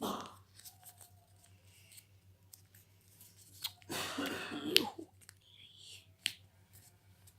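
A sheet of paper creased and handled while being folded into an origami boat: scattered sharp crackles and clicks, with a louder stretch of crinkling about four seconds in that ends in a sharp snap.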